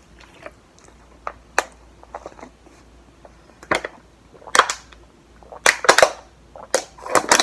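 Cornstarch crunching close to the microphone: sharp, irregular snaps and crackles, about a dozen, coming in quick clusters in the second half.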